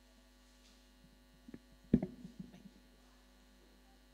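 Steady electrical mains hum. About two seconds in, a sharp thump breaks through, with a few faint short knocks and sounds around it, typical of the microphone or pulpit being touched.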